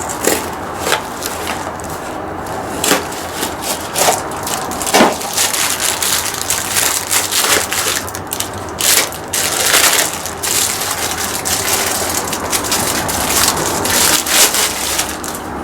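Continuous crackling and rustling, like packaging being handled and torn open, with many sharp snaps and clicks throughout: the new wheel bearing being unwrapped.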